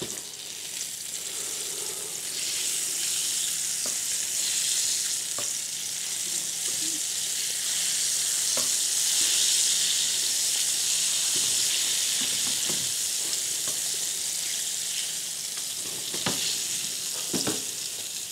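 Sardines frying in a pan of hot oil, a steady high sizzle, nearly done. A few light clicks of metal tongs against the pan as the fish are turned.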